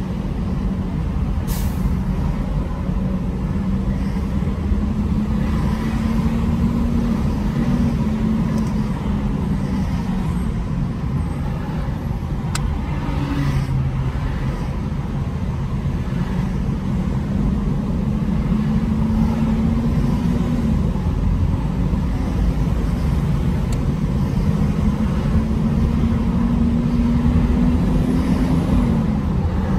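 Road and engine noise of a car moving slowly in dense freeway traffic, heard from inside the car: a steady low rumble with an engine note that climbs slowly and drops back three times as the car speeds up and eases off. A single sharp click about a second and a half in.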